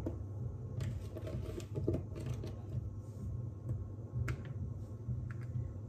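Light, scattered taps and clicks of zucchini rounds being laid out on a baking tray, over a steady low hum.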